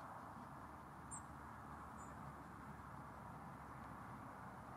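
Faint open-air ambience: a steady low background hiss, with a few brief high-pitched chirps from a small bird about one and two seconds in.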